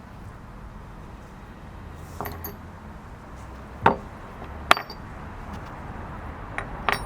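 A handful of separate sharp clinks and light knocks, like small hard parts and hand tools being picked up and set down: a pair about two seconds in, single ones near four and five seconds, and two more near the end.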